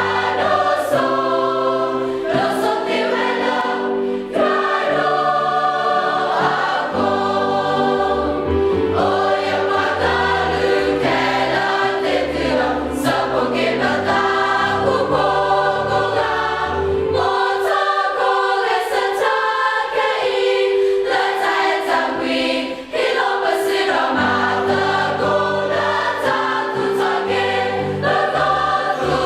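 A choir singing a song in several voice parts, with steady low accompanying notes beneath the voices.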